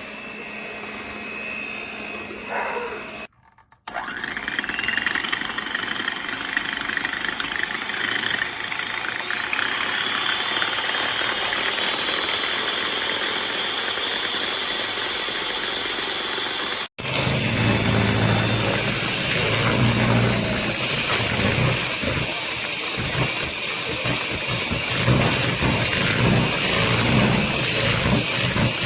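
Electric handheld mixer running, its motor whirring steadily with a faint high whine. It cuts out briefly twice. After the second break, well past halfway, it comes back louder and more uneven.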